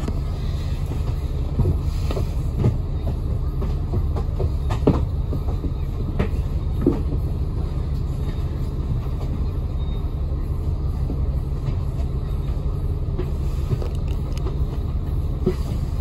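Inside a double-decker bus on the move: a steady low engine and road rumble, with a few short knocks and rattles in the first seven seconds.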